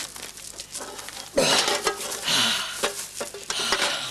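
Newspaper rustling and crinkling as it is handled and unfolded, starting about a second and a half in.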